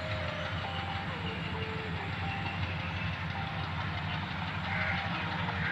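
ALCO WDM3D diesel-electric locomotive approaching on a curve, its V16 ALCO 251 engine running with a steady low rumble over the sound of wheels on the rails, growing slightly louder near the end.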